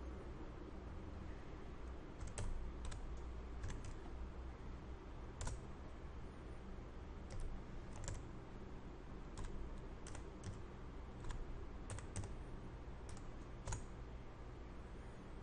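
Computer keyboard keys tapped in short, irregular runs, about twenty sharp clicks in all, as values are typed in, over a steady low background hum.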